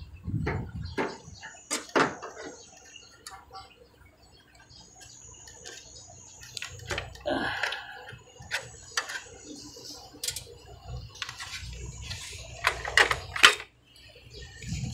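Irregular light clicks and knocks from hands handling wiring, metal and plastic parts inside an opened floor-standing air-conditioner unit, with a couple of sharper knocks near the end.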